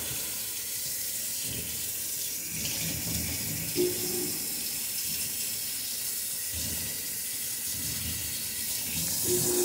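Kitchen faucet running steadily, its stream splashing through a plastic mesh blower-motor filter into a stainless steel sink as the dust is rinsed out with cold water.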